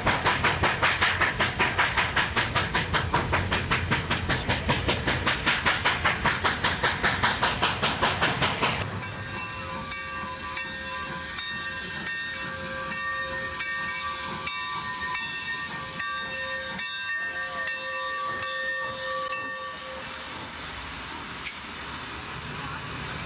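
Steam locomotive working at speed, its exhaust chuffing fast and evenly for about the first nine seconds. The sound then changes abruptly to a steady hiss of steam with a long whistle blast of several notes sounding together, held for about ten seconds before it stops, leaving the hiss.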